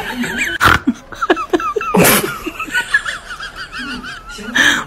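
People laughing in short quick pulses, with two sharp knocks and a high wavering tone running underneath.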